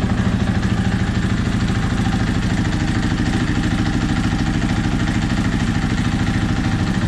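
Dirt bike engine idling steadily with an even, fast pulse.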